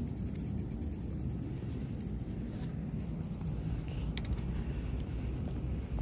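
Outdoor background noise: a steady low rumble, with a fast, high-pitched ticking trill of about a dozen ticks a second over the first second and a half, and a few faint clicks later.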